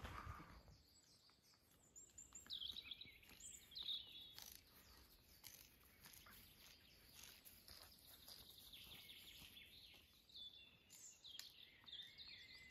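Faint birdsong: short chirping phrases about two seconds in and again near the end, over near silence.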